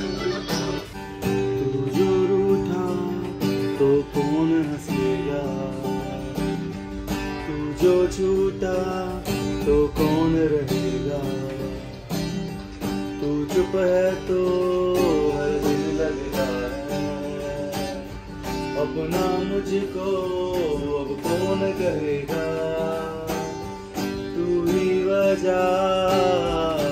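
A man singing while strumming an acoustic guitar in a steady rhythm.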